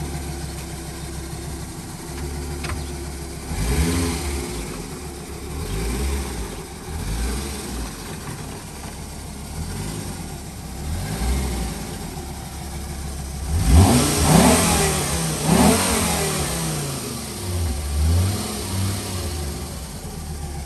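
Fiat Coupe 20v's five-cylinder engine idling and being blipped several times, the revs rising and falling back. The two biggest revs come close together about two-thirds of the way through. The car is running again after about three years laid up in a garage.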